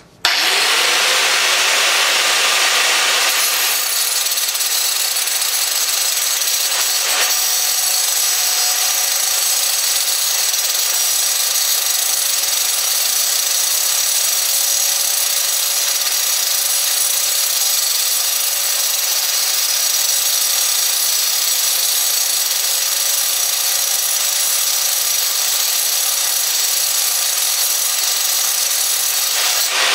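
Angle grinder with a 4½-inch cutoff disc cutting through a piece of steel angle held in a vise. It starts abruptly and spins up over the first few seconds, then gives a loud, steady high whine and grinding hiss as the disc cuts.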